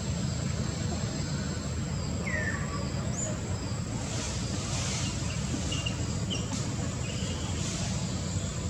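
Outdoor ambience: a steady low rumble with a constant thin high whine, and a handful of short chirps scattered through it.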